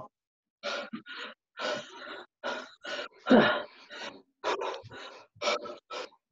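A person breathing hard and grunting in short bursts of effort during lunges, heard through a video call's microphone that cuts to silence between them.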